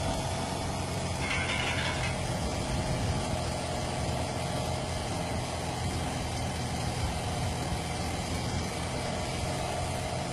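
Motorcycle engine idling steadily with a fast, even knocking in its running: the abnormal engine noise being shown.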